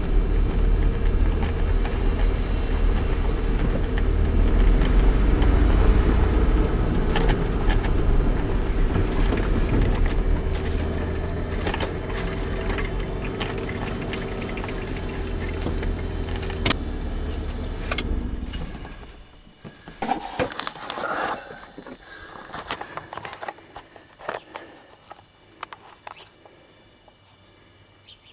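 Ford F-150 pickup's engine running at low revs as the truck is driven slowly, lugging along, with a steady hum; a sharp click comes at about 17 seconds, and the engine sound dies away about 19 seconds in. Scattered light clicks and rattles follow.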